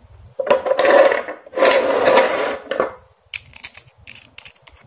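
Brass ball valve being unscrewed by hand, its threaded body nut grinding and rasping in two long turns, followed by a few light metallic clicks as the parts come loose.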